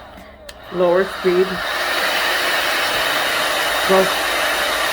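Handheld hair dryer blowing with a steady rushing hiss, growing louder about a second in as it is switched between speed settings, then holding steady.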